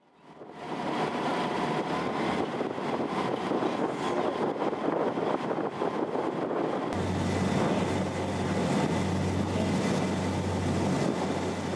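Cruise boat under way: its engine runs under a steady rushing noise, fading in at the start, and a low engine hum grows much stronger about seven seconds in.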